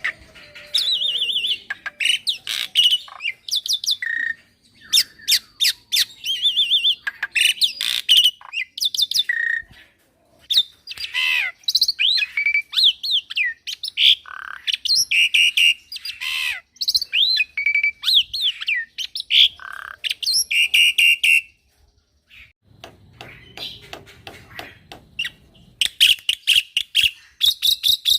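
Young black-winged myna (jalak putih) singing a full, varied song: harsh squawks, chatter and sliding whistles in rapid runs, with a short pause about ten seconds in and a longer one near the end.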